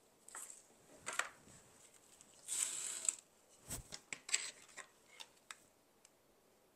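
Handling noises of a craft project: a short rustle of stiff artificial lavender stems, a sharp knock on the table a little past halfway, and a few light clicks.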